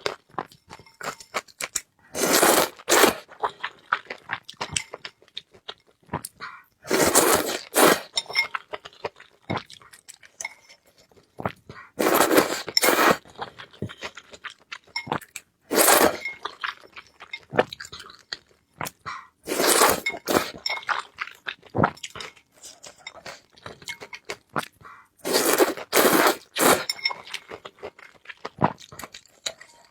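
Close-miked eating sounds: a burst of crunchy biting and chewing every four to five seconds, with small clicks and clinks in between.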